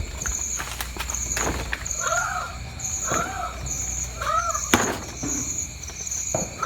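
Night-time outdoor sounds: a high insect chirr pulsing in a steady rhythm, a short rising-and-falling call repeated about once a second from an unseen animal, and scattered sharp clicks.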